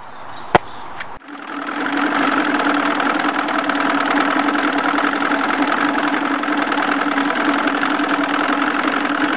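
A sharp click, then an outboard motor comes in about a second later and runs steadily at speed.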